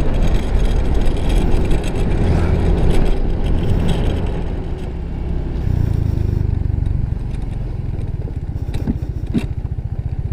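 Motor scooter engine running while riding along a road, with a steady low rumble that dips slightly about halfway through.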